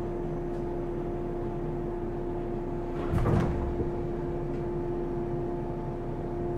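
Inside a JR 115-series electric train car: a steady hum with a constant tone from the train's equipment, and one short knock about three seconds in.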